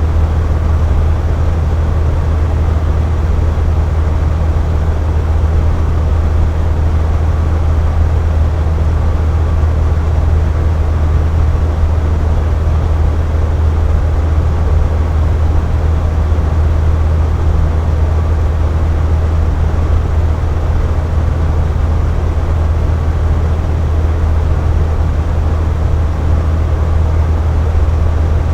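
Box fan running steadily at constant speed: an even rush of moving air over a deep low hum, with no change in speed or pitch.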